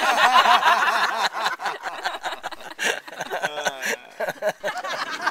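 A group of people laughing and chattering over one another, loudest in the first second and a half, with many short clicks throughout.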